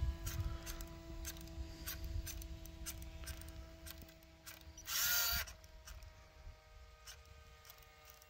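Antenna tracker's small gear motor whirring briefly about five seconds in as it turns to follow the aircraft, over a faint steady electronic whine and scattered soft ticks.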